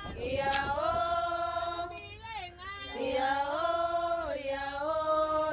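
A group of voices singing together in harmony, with long held notes that rise and fall together and a short break about halfway through.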